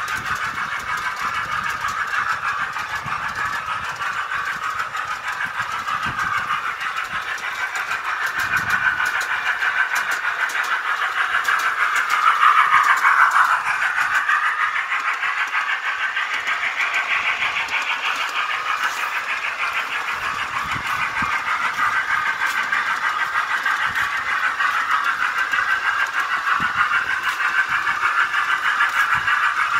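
Model train sound system playing engine sounds through a bad speaker: a tinny, buzzy engine sound with almost no bass, steady throughout except for a brief dip and rise in pitch about halfway through.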